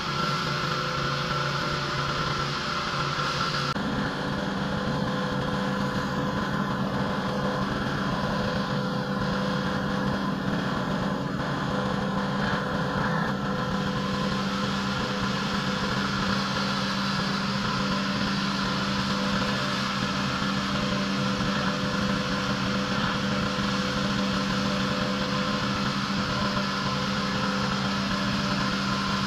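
Pressure washer running steadily: a constant engine hum under a hissing water spray, with a change in the tone about four seconds in.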